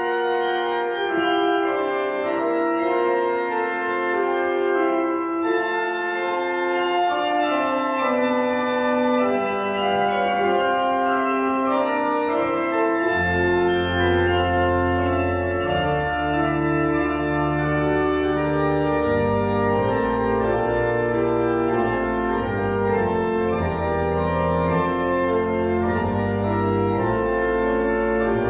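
Church pipe organ playing in sustained chords; deep pedal bass notes come in about halfway through.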